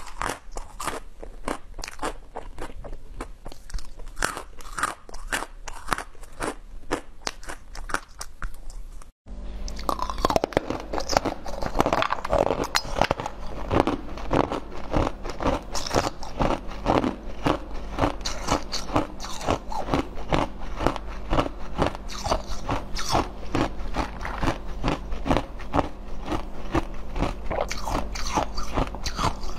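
Close-miked eating sounds: chewing with sharp crunching clicks. After a sudden cut about nine seconds in, louder, denser crunching and biting of translucent green and purple jelly-like pieces follows, over a low steady hum.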